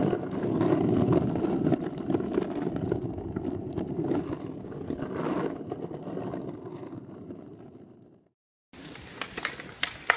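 Skateboard wheels rolling over pavement, heard close to the wheel: a steady, noisy rumble that slowly fades away and then cuts out. Near the end, a few sharp clacks of a skateboard on a handrail.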